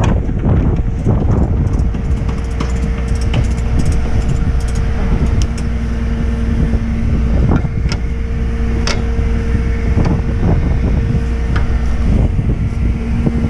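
Tow truck's engine running steadily, with a few sharp clicks and clinks of strap hooks and chain as the load is tied down on the steel flatbed.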